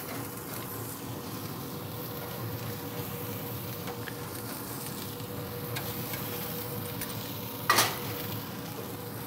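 Half-pound beef burger patties sizzling steadily on hot grill grates over a pellet grill's fire, with a faint steady hum underneath. A single sharp clank sounds near the end.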